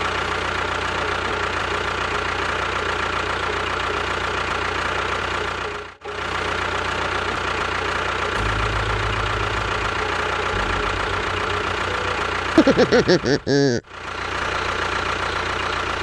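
Small motor of a DIY model tractor running steadily, with a louder warbling, pulsing stretch near the end.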